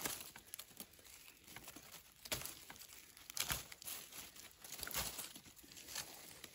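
Hands rummaging in dry leaf litter and twigs while picking mushrooms off a rotting log: faint crackling and rustling, with a few sharper snaps in the middle.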